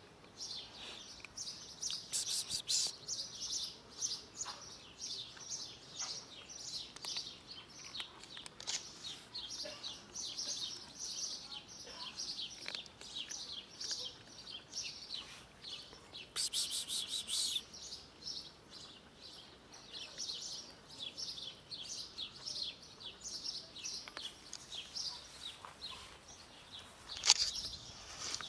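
Many small birds chirping and twittering without a break, high-pitched. A few short clicks cut in, the loudest one a sharp click near the end.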